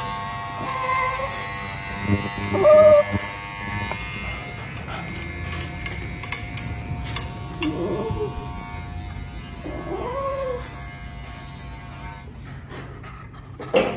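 Dog whining and yowling in about four drawn-out cries that rise and fall in pitch, the loudest about three seconds in, over the steady hum of electric dog clippers.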